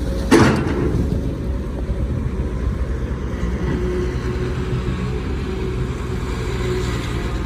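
Hydraulic excavator's diesel engine running steadily under work, with a single sharp metallic knock about a third of a second in.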